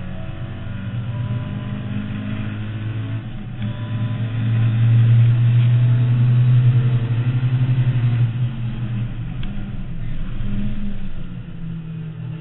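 Mk2 Ford Escort's 2.0 Pinto four-cylinder on 45 carburettors, heard from inside the cabin, running hard on track under load. It is loudest in the middle as the car pulls through a straight, then eases off near the end.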